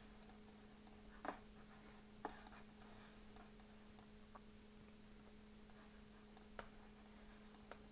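Near silence over a steady low hum, broken by about a dozen faint, irregular clicks from computer mouse and keyboard use.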